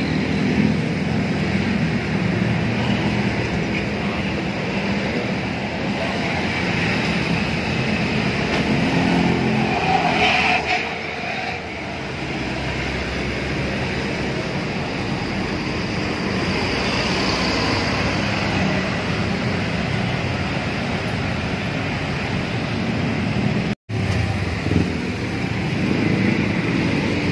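Diesel engine of a large intercity coach running close by as the bus moves off, then road traffic with motorcycles passing. The sound drops out for a moment near the end.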